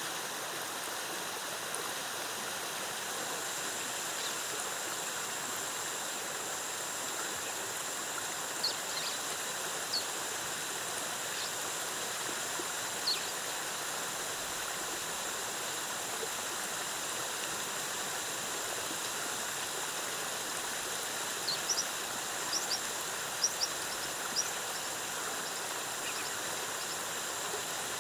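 Waterfall cascading with a steady, even rush of falling water. Short high chirps come through now and then, a few in the middle and a quick cluster near the end.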